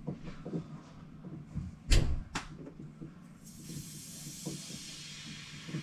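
A sharp knock and a click. About three and a half seconds in, a steady high hiss of gas begins, as from an oxy-acetylene brazing torch whose valve has been opened.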